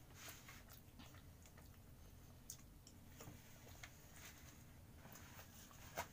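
Near silence: room tone with a few faint scattered clicks and one sharper click near the end.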